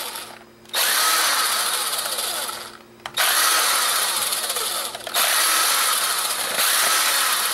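Cordless impact driver running in three runs with two short stops, backing out small screws from a camcorder's plastic case.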